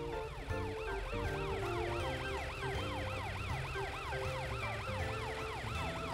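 Cartoon police car siren in a fast yelp, its pitch sweeping up and down about four times a second.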